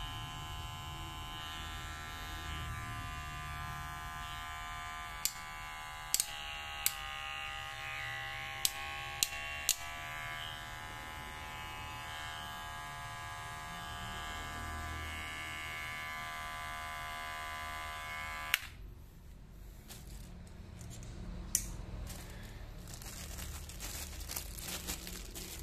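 Kemei cordless hair clipper running with a steady buzz, with several sharp clicks over it between about five and ten seconds in. It switches off with a click about three-quarters of the way through. After that, plastic packaging crinkles as it is handled.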